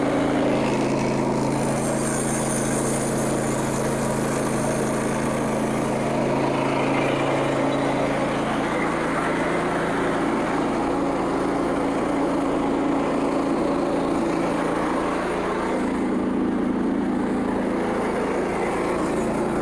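Frontier OS27 portable bandsaw sawmill running steadily on its small gas engine, the band blade cutting a log as the power feed carries the head along. The engine's tone shifts slightly about halfway through and again near the end, and a high hiss rises early on.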